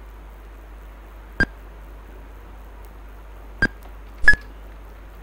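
Three short electronic computer beeps: one about a second and a half in, then two close together near the end, the last a little longer and louder, over a faint steady hiss.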